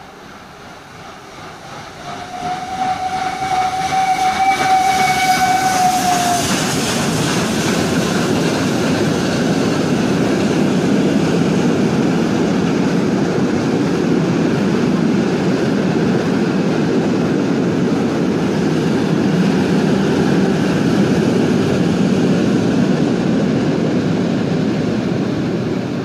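Steam locomotive sounding one long whistle blast about two seconds in, the pitch dropping slightly as it ends. The train then passes with a loud, steady rumble and wheel clatter that runs on to the end.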